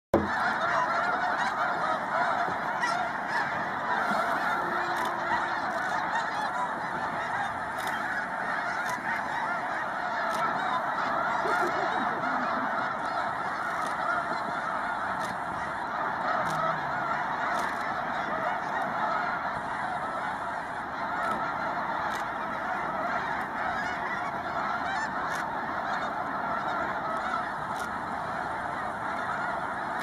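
A huge flock of snow geese calling all together: a dense, unbroken din of overlapping honks.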